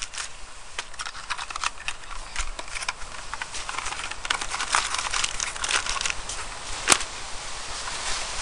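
Irregular crackling and rustling with many small clicks, and one sharper click about seven seconds in.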